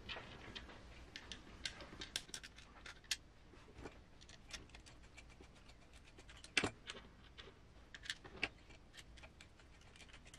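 Faint, scattered small clicks and taps of M3 nuts being fitted into an RC crawler's transmission mount by hand, with two sharper clicks about six and a half and eight and a half seconds in.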